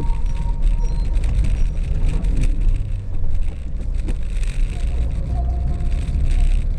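Chevrolet Celta driving, heard from inside the cabin: a steady low rumble of engine and road noise, a little stronger after about three seconds.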